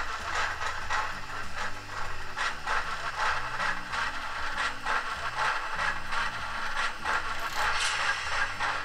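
H0-scale model Zugspitzbahn rack locomotive pushing three coaches up a 15% incline: its gear drive and cogwheel clatter and click continuously along the rack track over a low steady motor hum.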